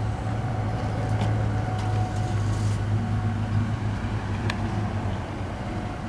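Double-stack container freight train rolling past at a distance: a steady low drone with a few faint clicks.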